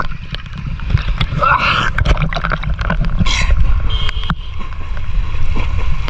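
Water sloshing and splashing close around a camera held at the surface by a swimmer, under a steady low rumble, with scattered splashes and a brief shout about a second and a half in.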